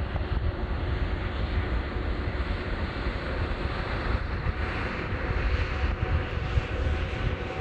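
Twin turbofan engines of a Boeing 787-10 Dreamliner running as the airliner rolls down the runway for takeoff: a steady deep rumble, with a hissing jet noise that grows stronger about four seconds in.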